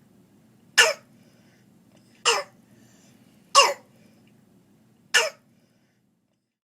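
Croup cough: four short, harsh, barking coughs about a second and a half apart. The bark is the sign of croup, where swelling of the airway around the voice box narrows it.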